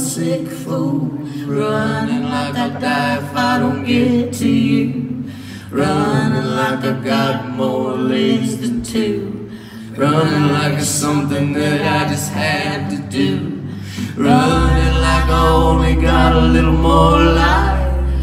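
Live music: voices singing sustained phrases over acoustic guitar, with short breaks between the phrases. About two-thirds of the way through, a deep, steady low note comes in under the singing.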